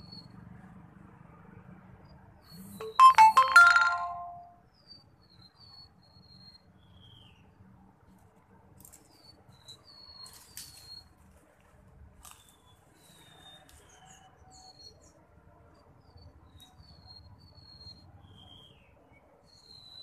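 Sir-sir birds chirping, short high notes repeated every second or so. About three seconds in, a brief loud pitched sound with clicks rises above them.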